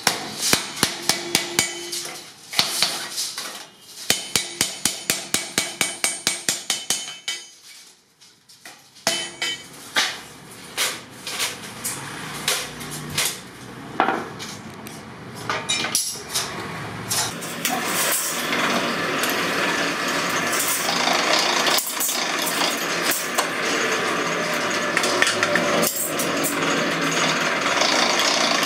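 Hand hammer striking an iron sheet laid over a steel bar, in quick runs of ringing metal blows, about three or four a second at times. The blows thin out after a short pause, and a little past the middle a steady, dense machine noise of metal working takes over.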